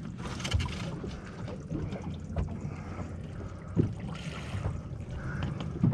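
Open-boat ambience: wind buffeting the microphone over a steady low hum, with a few soft knocks and handling sounds as a triggerfish is pressed onto a plastic measuring board.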